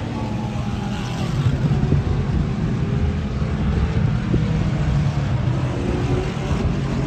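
Race car engines running on a circuit as several cars come through a bend: a deep, steady rumble with faint engine notes gliding up and down as they go on and off the throttle.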